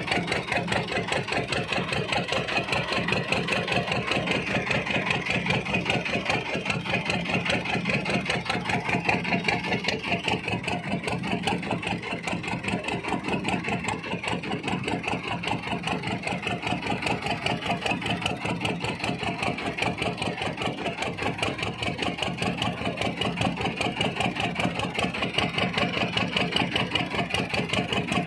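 A small fishing boat's engine running steadily at an even speed, with a fast, regular beat.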